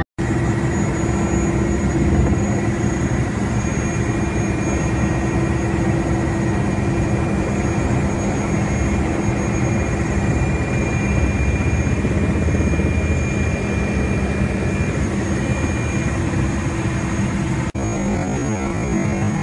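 Helicopter engine and rotor noise: a loud, steady drone with a high, steady whine over it.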